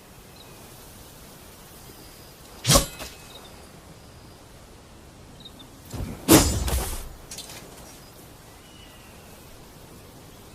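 Oxtail saber strikes: one sharp hit about three seconds in, then a louder cluster of hits a little past the middle that trails off over about a second.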